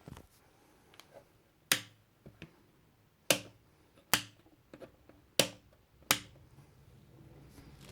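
A series of sharp clicks: five loud ones, irregularly spaced a second or so apart, with a few fainter clicks between them.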